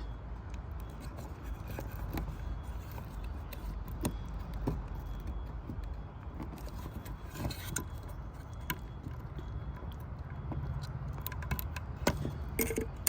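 Scattered metallic clicks, clinks and scrapes of a Ford Focus horn and its plug connector being worked loose by hand, over a steady low rumble.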